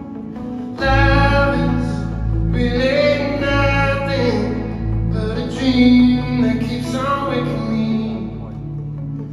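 Live performance of a male singer with acoustic guitar in a large arena. The guitar plays alone at first, then the voice comes in about a second in with long, held sung phrases over the guitar.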